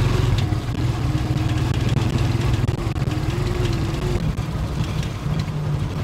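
Motorcycle engine of a Philippine tricycle (motorcycle with sidecar) running under way, a steady low drone with a rapid flutter. Its engine note holds, then drops away about four seconds in.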